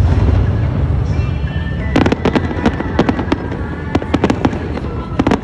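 Aerial fireworks: a deep boom of shells bursting at the start, then from about two seconds in a dense run of sharp crackling pops from crackle shells.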